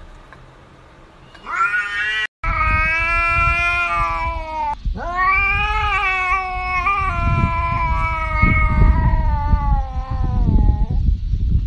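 Tabby cat yowling: a short rising meow about a second and a half in, then two long drawn-out wails, the second lasting about six seconds and wavering in pitch, with a low rumble underneath.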